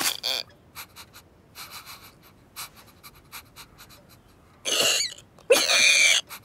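Cartoon cat sound effects: faint light ticks and scratches of the kitten's movements, then near the end a short breathy huff followed by a longer pitched cat cry.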